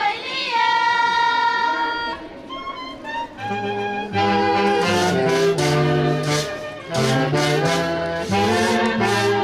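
High-pitched singing holds a long note, then band music with brass, a low bass line and a steady beat strikes up about three and a half seconds in.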